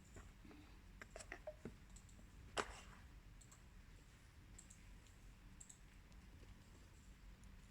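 Near silence broken by a few faint, sharp clicks of small objects being handled, with one louder click about two and a half seconds in.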